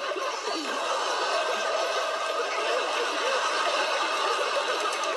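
Sitcom studio audience laughing, a sustained crowd laugh.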